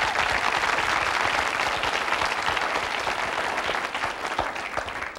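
Studio audience applauding, the clapping dying away near the end.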